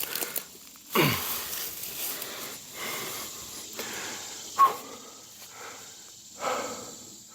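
A man's heavy breathing, out of breath from the exertion of moving and climbing a ladder stand: several loud breaths a second or more apart. A short sharp clink about four and a half seconds in.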